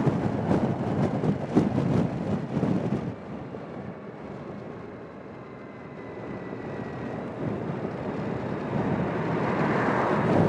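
Suzuki Burgman 650 scooter being ridden, wind buffeting the microphone over the engine and road noise. The wind noise drops sharply about three seconds in, leaving a quieter steady hum with a faint whine, then builds steadily again as the scooter picks up speed.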